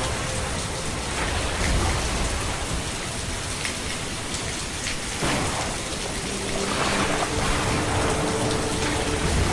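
Steady rain falling, with individual drops pattering on surfaces.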